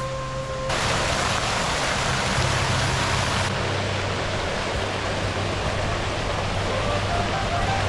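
Steady rush of splashing water from a fountain, cutting in suddenly about a second in. Faint musical notes creep back in near the end.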